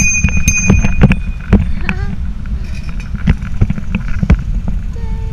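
Wind buffeting the microphone and the rumble and rattle of a moving bicycle, with a bicycle bell ringing once at the very start and fading over a second or so.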